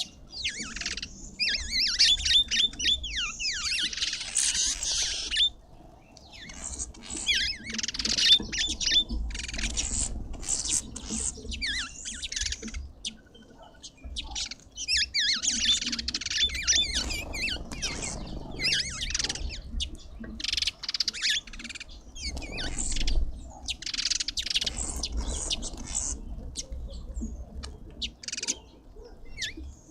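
Garden birds chirping and twittering at a feeder in busy bursts of quick, high calls, with a few short lulls.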